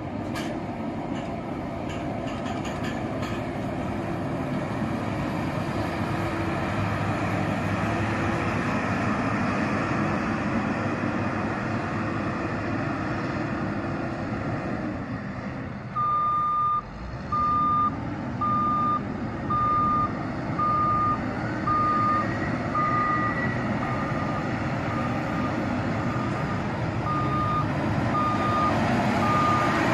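Heavy road-construction vehicle engines running steadily. About halfway through, a reversing alarm starts beeping about once a second over the engine noise.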